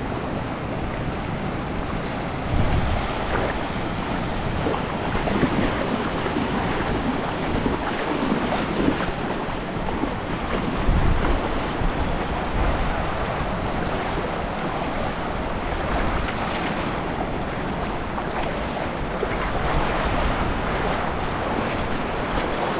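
Shallow sea surf washing and sloshing close by, with gusts of wind buffeting the microphone now and then.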